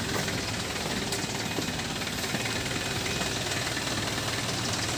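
Kia Bongo truck's engine running steadily as the truck moves off slowly on a test drive after repair.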